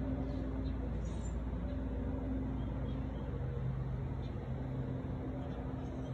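A steady low mechanical hum with faint droning tones that fade in and out.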